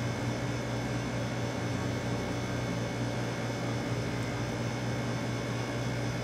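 Steady electrical hum with several fixed tones over even room noise, unchanging throughout; no sawing or cutting strokes stand out.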